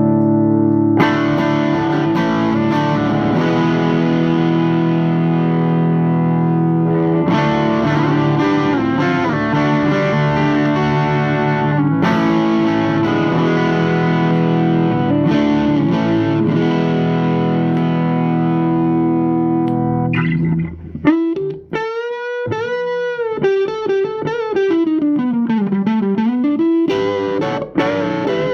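Electric guitar through a Thick Electronics Thickener overdrive pedal, playing distorted chords that are struck and left to ring, a new chord coming in about every five or six seconds. Near the end it switches to a single-note lead line with wide bends that sag in pitch and come back up.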